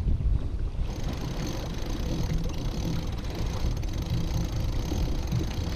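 Steady low rumble of wind on the microphone and water along the hull aboard a sailing yacht under way, with a slight change in the sound about a second in.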